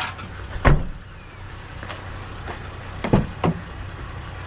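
Scrap pieces knocking as they are handled and tossed: one sharp knock under a second in, then two close together just after three seconds. Under them runs the steady low hum of a running vehicle engine.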